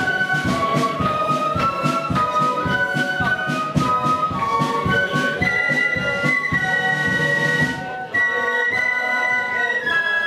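A flute band of keyed flutes plays a marching melody in unison, note by note with one long held high note in the middle, over a steady snare-drum beat. The drums drop out about eight seconds in while the flutes play on.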